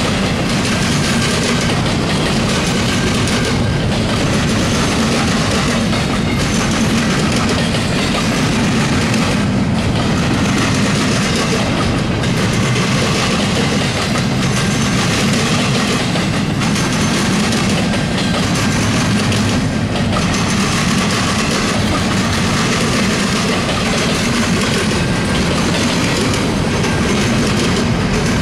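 A loaded double-stack intermodal train's container well cars rolling past, a steady noise of steel wheels running on rail.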